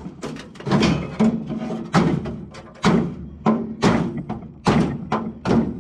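Hammer blows on the sheet-steel body of a 1936 Ford coupe during floor removal: about ten irregular strikes, roughly two a second, some leaving a short low ring.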